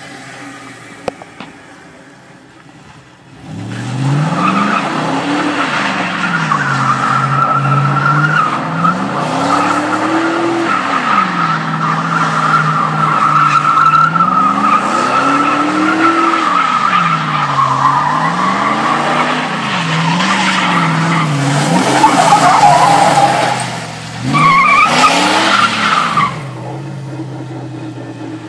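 A Chevy pickup's 5.3-litre V8 revving up and down over and over as the truck spins donuts, with its tyres spinning and skidding in the dust. The engine comes in hard about three and a half seconds in, its revs rising and falling every couple of seconds. It eases off near the end.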